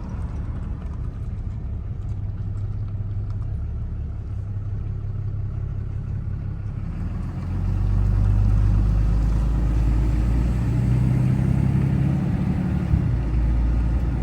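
A motor vehicle's engine and road noise as it drives along, a steady low drone that grows louder and fuller about halfway through as the engine works harder.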